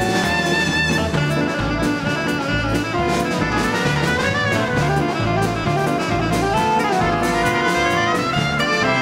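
Live dance band playing a Latin number, with saxophones and brass over a pulsing bass line and drum kit.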